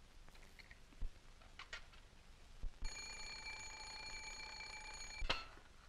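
Mechanical alarm clock bell ringing with a fast, even clatter for about two and a half seconds, starting about three seconds in, then cut off by a sharp knock. A few faint clicks from handling the clock's works come before it.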